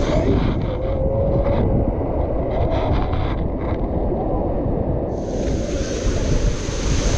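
Wind buffeting the microphone over the wash of the sea, with a rush of hissing water noise coming in about five seconds in.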